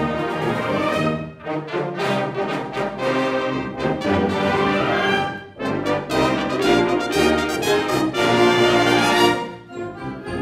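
A large wind band of brass and woodwinds (trumpets, trombones, saxophones, tubas, bassoon) playing full sustained chords in phrases. There are brief breaks between phrases about a second and a half in and about five and a half seconds in. The loudest chord comes near the end, and the band then drops away quieter.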